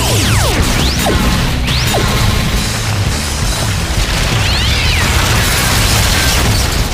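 Cartoon action sound effects over background music: a few laser-beam zaps sweeping down in pitch, then a long explosion with crashing, tumbling rock as a cliff collapses.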